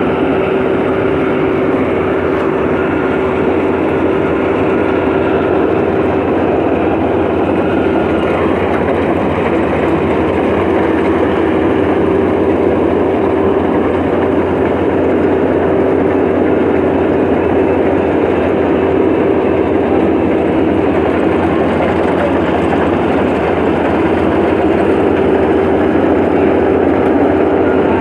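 Kubota DC-35 combine harvester running steadily while harvesting rice: a loud, even diesel drone with a constant whine from the machine.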